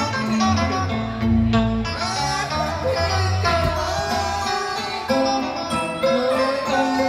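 Cải lương music played on plucked string instruments led by guitar. The deep bass notes drop out partway through.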